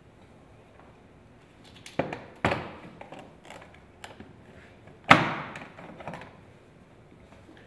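Plastic engine cover being pulled up off its press-fit mounting studs: two sharp pops about two seconds in and a louder pop about five seconds in, with small plastic clicks and knocks between.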